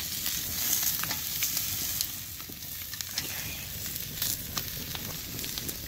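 Thick bone-in cowboy ribeye steaks searing on hot grill grates over charcoal, sizzling steadily with frequent sharp pops and crackles.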